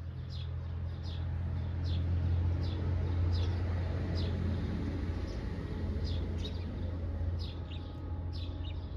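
A small bird chirping over and over, short high falling notes about one or two a second, over a steady low hum.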